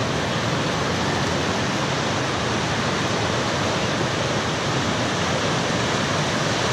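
Whitewater rapids of a man-made kayak run rushing steadily, water churning and tumbling over rock drops in an even, unbroken rush.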